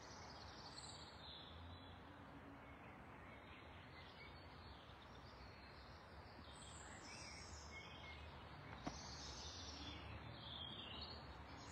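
Near silence: quiet garden ambience with faint, distant birdsong now and then, and one small click about nine seconds in.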